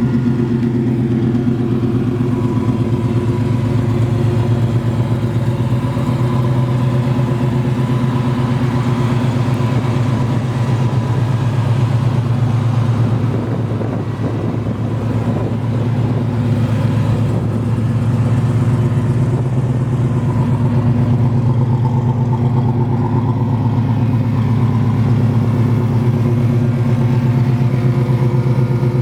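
Chevrolet 396 big-block V8 idling steadily through headers and a Flowmaster dual exhaust, a deep even burble.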